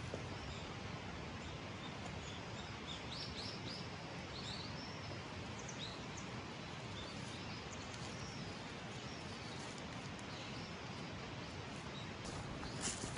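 Small birds chirping now and then, short scattered chirps over a steady hiss of outdoor background noise.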